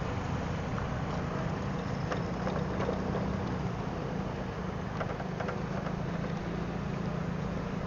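Motorcycle engine running at a steady pitch while riding, with road noise over it and a few light clicks about two and five seconds in.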